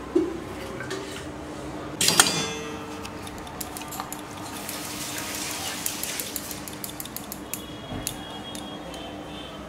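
Stainless steel bowls and serving utensils clinking and clattering, with a loud clatter about two seconds in. After that comes a run of scraping and light tapping as a steel utensil works soft rice in a steel bowl.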